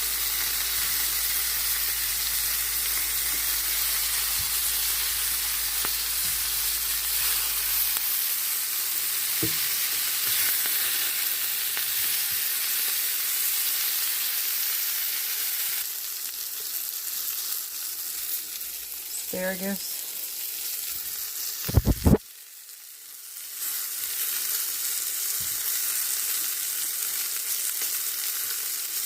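Flour-dredged salmon bites frying in olive oil in a pan, with a steady sizzle. About two-thirds in, a few loud knocks are heard, the sizzle briefly drops away, then it resumes.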